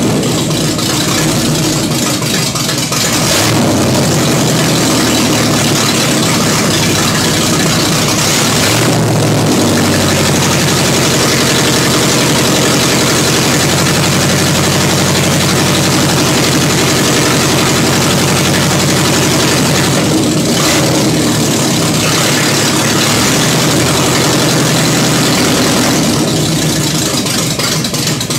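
Ford F100 pickup's V8 engine running with the hood off, close up. Its speed shifts about three seconds in and again about nine seconds in, then it runs steadily.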